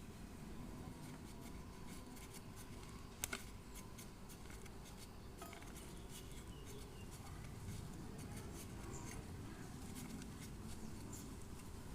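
Faint scattered clicks and light taps of small parts or tools being handled, with a sharper double click a little over three seconds in, over a low steady hum.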